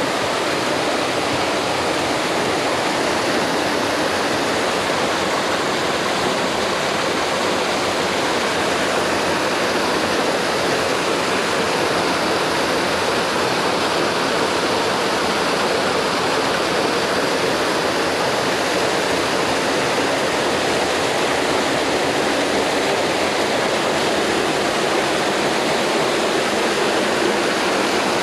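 Small waterfall running over rocks: a steady, unbroken rush of falling water.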